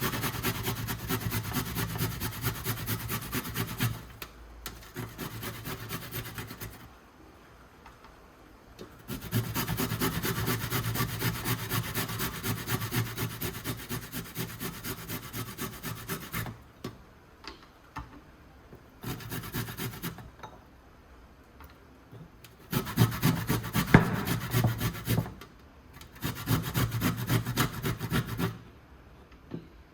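Rapid rasping strokes of food being grated on a hand grater, several strokes a second, in runs of a few seconds with short pauses between.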